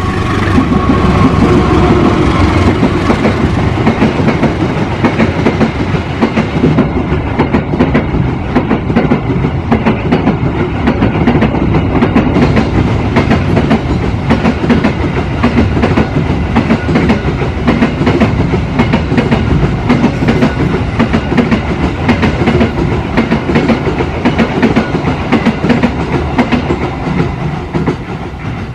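Freight train of empty flat container wagons rolling past close by, hauled by a diesel locomotive, with a steady run of wheel clicks over the rail joints.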